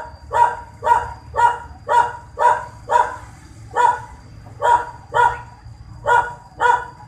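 A dog barking over and over, about two barks a second, with a short pause about halfway through. A faint steady high-pitched whine runs beneath.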